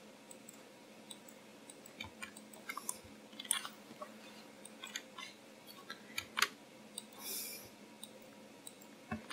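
Faint, scattered clicks of a computer mouse and keyboard keys, one every second or so, over a low steady hum, with a short soft hiss about seven seconds in.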